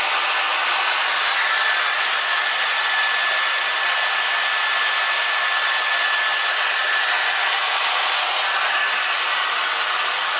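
Heat gun blowing steadily, shrinking heat-shrink tubing over cable joints, with a faint whistle for a few seconds in the middle.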